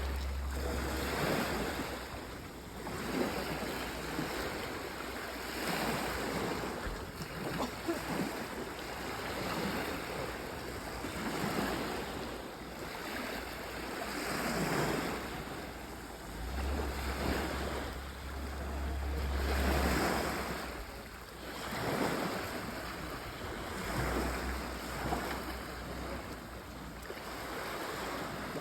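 Sea waves washing onto the shore, the surf swelling and fading every few seconds. Wind buffets the microphone now and then.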